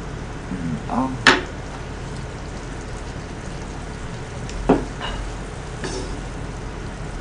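Beef in soy sauce sizzling steadily in a frying pan while it is stirred with a wooden spatula. Sharp knocks of the spatula or utensils on the pan, the loudest about a second in and another near the middle.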